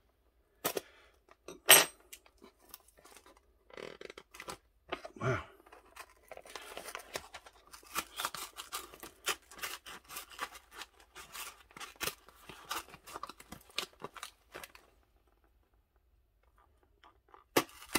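Cardboard box and its packing tape being cut and scraped open with a knife: scattered clicks, then a dense run of short scraping rasps and clicks that stops about three seconds before the end, followed by one sharp click.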